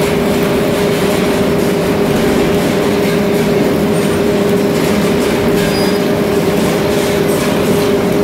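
Onion packing line machinery running: a loud, steady mechanical hum with a constant rattle.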